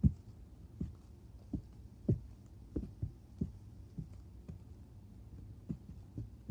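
Cornstarch slime squished and pressed by hand, giving a dozen or so soft, dull thuds at an uneven pace of about one a second or a little faster.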